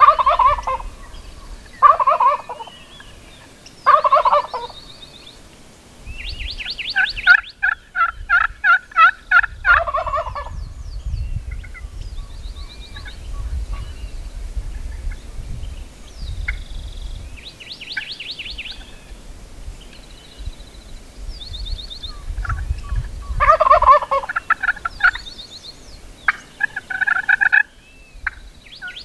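Gould's wild turkeys gobbling again and again, at times in quick succession and at times with long gaps. A fast run of sharp, evenly spaced notes comes in between, and faint small-bird chirps can be heard.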